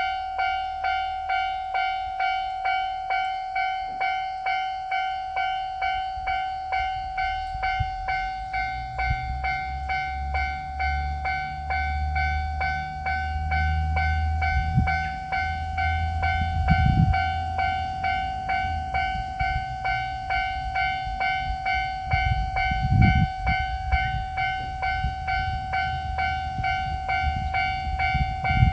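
Japanese railroad crossing bell ringing steadily, about one and a half dings a second. From about seven seconds in, the engine rumble of a JR Shikoku 9000-series rail transport car comes in under it and grows. Heavy wheel thumps come over rail joints several times in the second half.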